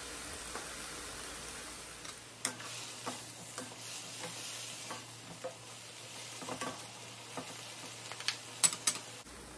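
Beef strips and broccoli sizzling in a hot wok, with a wooden spoon stirring them from about two seconds in, scraping and knocking against the pan. A few sharper knocks near the end are the loudest sounds.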